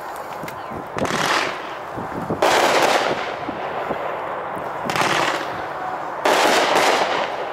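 Winda Neon Blast aerial firework going off: four loud bursts at uneven intervals, each ringing out for half a second to a second.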